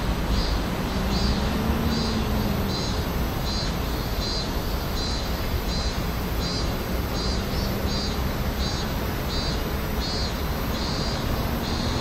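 Steady outdoor background rumble, with a short high-pitched chirp repeating a little more than once a second.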